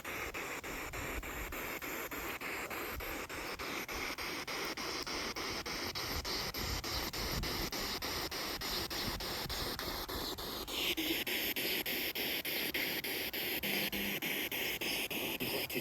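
Spirit box sweeping through radio stations: a steady hiss of static chopped by even clicks, about four a second, its tone shifting about two-thirds of the way through.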